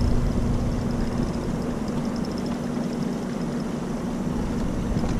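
Steady low hum of the bass boat's motor running.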